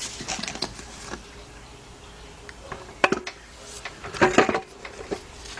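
Torque converter being pushed onto an automatic transmission's input shaft and turned by hand to seat it in the pump: scattered metal clunks and scrapes, with a sharper knock about three seconds in and a cluster of knocks about four seconds in.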